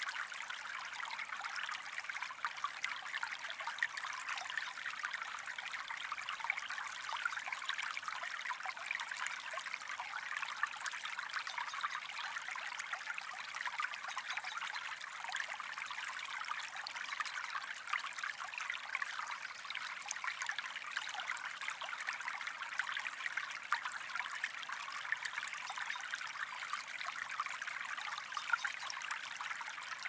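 Small stream running: a steady, light trickle of water with a bright, fine-grained splashing and hardly any deep rush.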